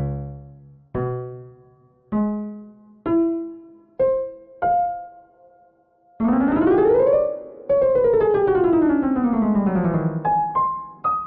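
Electric-piano intro jingle: six single struck notes climbing in pitch about one a second, then a sweep up and a long slide back down, ending in three quick rising notes.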